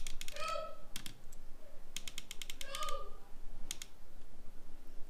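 Small plastic clicks and taps in short clusters as gauge needles are pressed back onto the spindles of a Jeep Wrangler JL instrument cluster, with a brief squeak twice.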